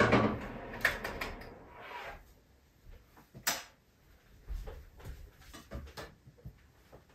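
Clatter of things being handled at a kitchen counter for about the first two seconds. A sharp click comes about three and a half seconds in, followed by scattered light knocks and footsteps on a wooden floor.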